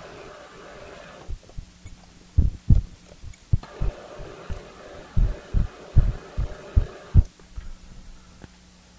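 Milling machine spindle drilling a 13/64-inch hole, the cutting heard as two spells of steady rasping noise, with a series of dull low thumps between and during them. A faint steady motor hum remains once the cutting stops, shortly after the halfway point.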